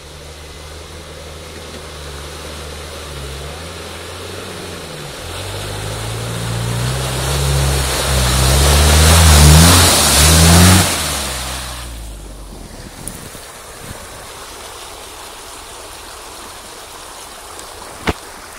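Off-road 4x4's engine revving up and down as it pushes through deep mud past close by, its tyres churning the mud. The sound builds over several seconds, is loudest about ten seconds in, and falls away suddenly just after. A single sharp knock near the end.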